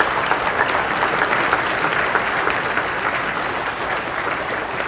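Audience applauding, a steady round of clapping that holds at an even level throughout.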